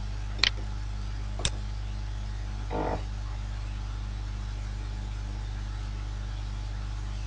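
Steady low electrical hum on the recording, with two sharp clicks about a second apart near the start and a brief soft rustle near the three-second mark.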